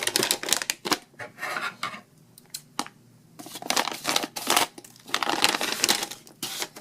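Scissors snipping through product packaging, with packaging crinkling and rustling as it is handled. There is a short lull about two seconds in, then a longer run of cutting and crinkling.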